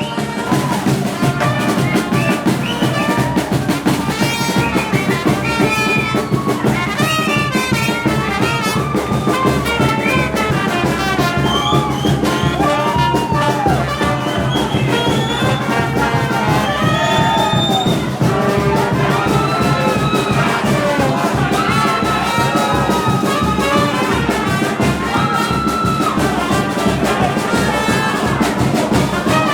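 Lively music led by brass, trumpets and trombones, over a steady beat, cutting in suddenly at the start.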